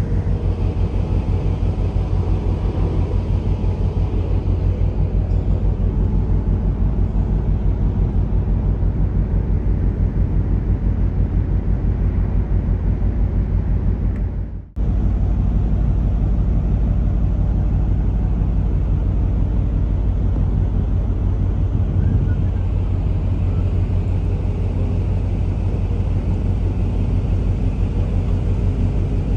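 Steady low rumble of a large container ship's machinery, with a fine rapid pulse running through it and a brief dropout about halfway through.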